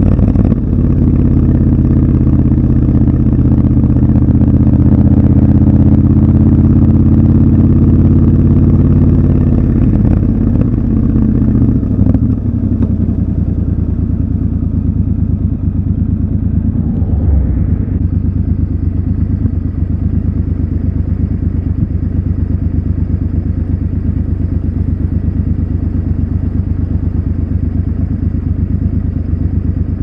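Triumph Scrambler 1200 XC's 1200 cc parallel-twin engine running steadily under way, dropping in pitch as the bike slows about ten seconds in, then idling with an even low pulse while stopped.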